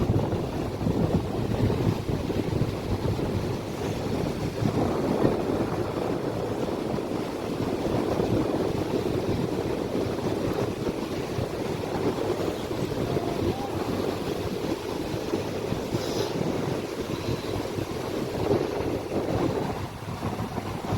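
Steady rushing noise of wind and sea, with wind buffeting the microphone; no distinct strokes or engine tone stand out.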